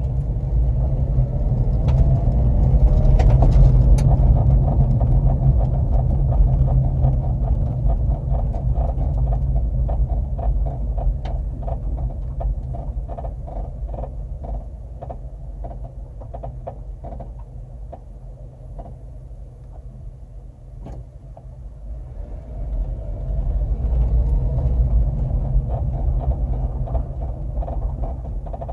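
Road rumble inside a 2009 Honda Civic as it slows down and then speeds up again, with a repeated squeak like a squeaky bed that comes with light braking and is the fault the owner is trying to track down.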